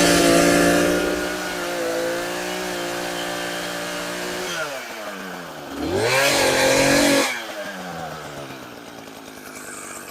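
Two-stroke gas chainsaw running at high speed while cutting a face notch in a tree. About four and a half seconds in it falls to idle, revs up again for about a second, then drops back to idle before revving once more at the very end.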